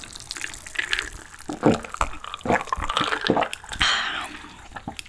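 Wet squelching and scraping of a spoon working through saucy food in a container, with scattered light clicks of the utensil.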